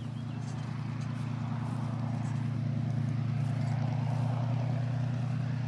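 Single-engine piston warbird's propeller engine running steadily at low power as it taxis, slowly growing louder as it comes closer.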